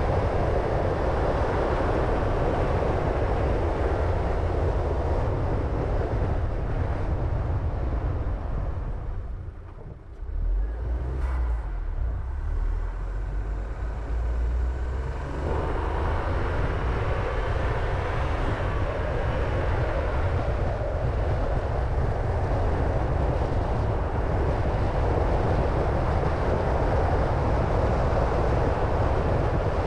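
A car driving on the road: steady tyre and engine rumble. It dips briefly about ten seconds in, returns as a low rumble, and fills out again a few seconds later.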